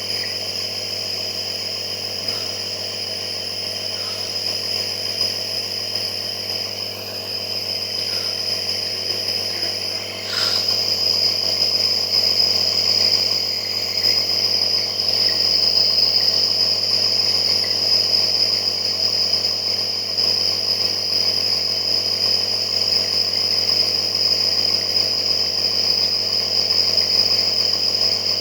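Nebulizer compressor running steadily, a constant motor drone with a high hiss. There is a click about ten seconds in, after which it runs a little louder.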